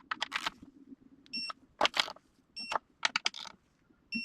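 Ratchet wrench clicking in short strokes of rapid clicks with pauses between, some strokes carrying a brief metallic ring, as the 8 mm intake manifold bolts are run down.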